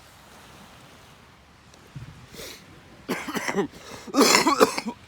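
A person coughing hard to clear the lungs, in two bouts of several coughs each, about three and four seconds in; the second bout is the louder.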